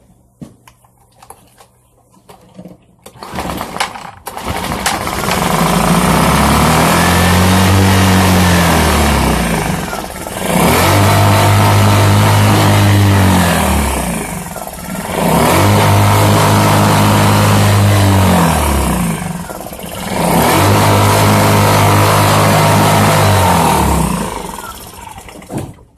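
Generac portable generator's small gasoline engine catching a few seconds in and running loudly, its speed surging up and dropping back about every five seconds, before it dies away near the end.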